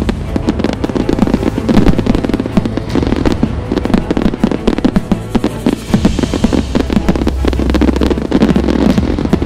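Fireworks bursting in a dense, rapid string of bangs and crackles, mixed with background music that has a steady low bass.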